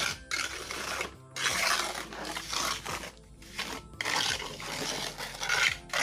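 A steel trowel scraping and smoothing wet cement mortar across a flat concrete surface. It comes in rasping strokes with short breaks between them.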